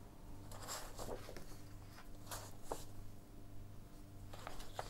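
Paper pages of old sewing magazines being lifted and turned by hand: a few soft rustles and brushes, with a light tap about two and a half seconds in.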